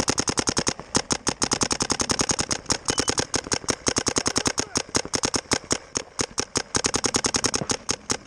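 Paintball marker firing a rapid stream of shots, about ten a second, with a couple of brief pauses.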